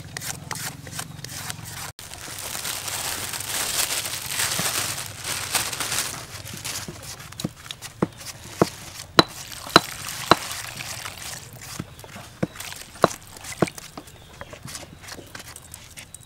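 Hands working freshly grated coconut in an aluminium bowl: a soft rustling hiss for several seconds, then scattered sharp clicks and light taps, some ringing off the metal bowl.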